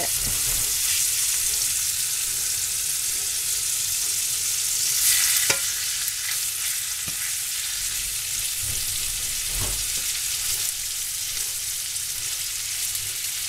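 Ribeye steaks sizzling steadily in olive oil and butter in a hot cast-iron skillet. A fork taps the pan a few times as the steaks are moved.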